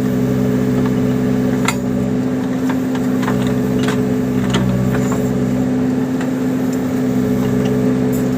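Case 580 Super backhoe loader's diesel engine running at a steady pitch, with a few sharp metallic knocks and clanks scattered through the first half.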